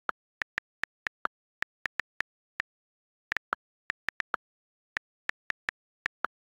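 iPad on-screen keyboard key clicks as a line of text is typed: about two dozen short ticks at an uneven typing pace, a few of them lower-pitched than the rest.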